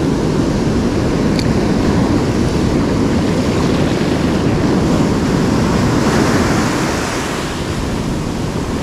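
Ocean surf breaking and whitewater rushing up around the feet in the shore wash, a loud steady roar that swells and turns hissier about six seconds in as a wave washes in.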